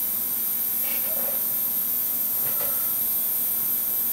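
Steady electrical hum and hiss, with a few faint, brief handling sounds as a small tool works at the oil pressure relief valve piston and spring in an engine timing cover.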